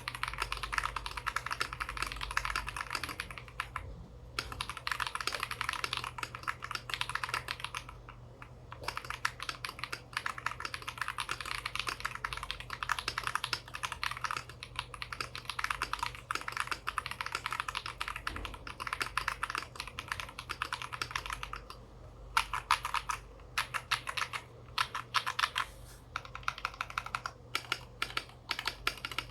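Typing on a KBD67 Lite R2 mechanical keyboard with stock Holy Panda tactile switches, PE-foam and silicone-dampened, with IFK Port keycaps. The keystrokes run fast and continuous, with short pauses about 4 and 8 seconds in, then turn slower and more separate near the end.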